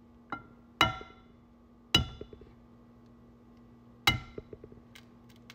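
A quail egg tapped against the rim of a metal frying pan to crack it: four sharp knocks, the pan ringing briefly after each, with small clicks of the shell being picked apart between the taps.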